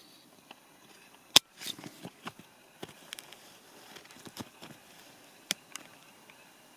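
Scattered sharp ticks and taps at irregular intervals, one much louder about a second and a half in: angry bees pinging off the truck's windshield and body, heard from inside the cab.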